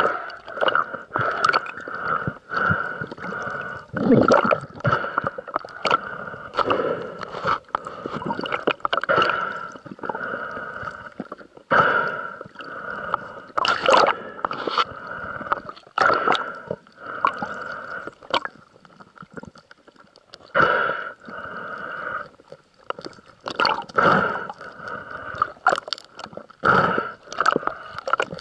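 Underwater sound picked up through an action camera's housing: irregular knocks and gurgling water as a diver handles a speared grouper, over a steady high tone.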